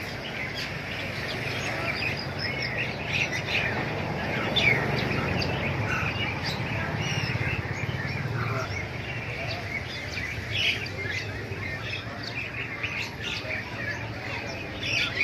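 Many caged songbirds chirping and calling over one another in a bird shop, with a steady low hum underneath.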